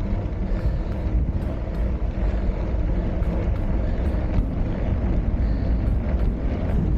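Wind rushing over the microphone of a camera on a moving bicycle: a steady low rumble.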